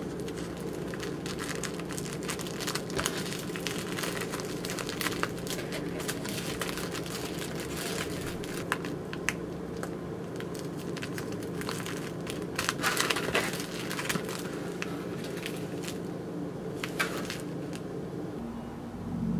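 Plastic-film triangle kimbap wrapper crinkling and crackling as it is folded by hand around the rice ball and sealed, in irregular bursts, loudest about two-thirds of the way through. A steady low hum runs underneath.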